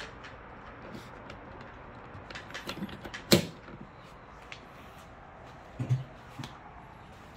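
J1772 charging connector worked into a Fiat 500e's charge port, with small plastic clicks and one sharp latch click about three seconds in. A dull thump follows near six seconds.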